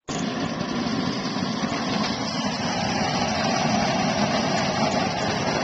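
Beef fajita strips sizzling in a disco, a steel plow-disc wok, set over a gas burner: a steady, dense hiss together with the low, even rush of the burner flame.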